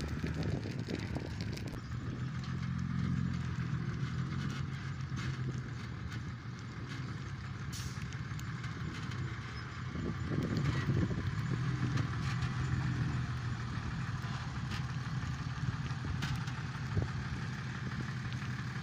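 Excavator engine running steadily, a little louder from about halfway through, with scattered short clicks over it.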